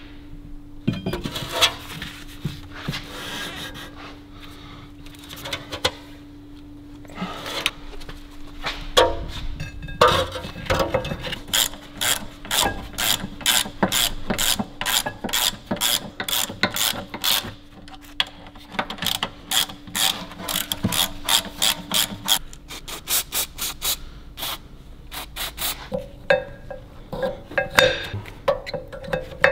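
Hand ratchet wrench clicking in quick runs of strokes as bolts are run in and tightened, after a few seconds of metal parts clattering. A steady low hum sits underneath until late on.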